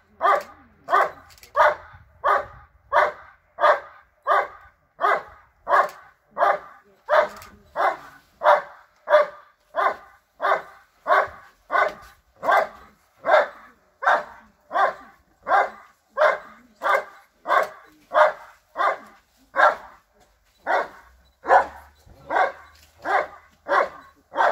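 German Shepherd Dog barking steadily at a helper in the blind: the hold-and-bark of the IGP protection phase. It is a long, unbroken run of loud, evenly spaced barks, about three every two seconds.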